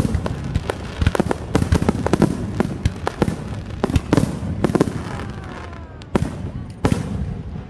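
Aerial firework shells bursting in rapid, overlapping bangs, which thin out after about five seconds, followed by two last loud single bangs near the end.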